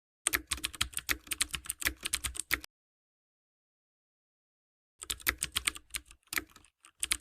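Computer keyboard typing: rapid, uneven key clicks in two bursts of about two seconds each, separated by dead silence.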